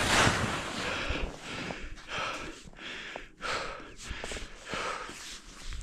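Skis swishing through deep fresh powder in quick linked turns, a hiss that swells and fades about once a second, with the skier's hard breathing and wind on the microphone.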